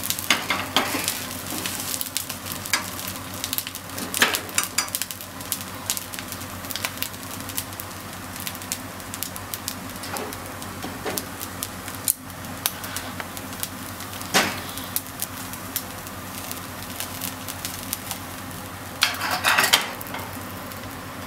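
Corn fried rice sizzling steadily in a nonstick frying pan, with a wooden utensil scraping and knocking against the pan as the rice is stirred, loudest in a few short spells near the start, about four seconds in, around fourteen seconds and near the end.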